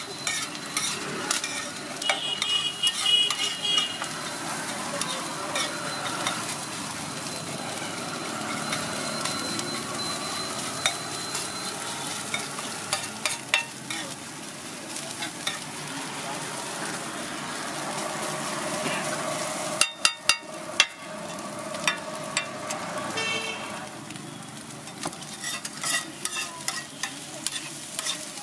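Metal spatula scraping and clacking against a large flat griddle as an egg, onion and chilli mixture is chopped and stirred, over a steady sizzle of frying. Sharp spatula taps come throughout, with a quick run of loud ones about twenty seconds in.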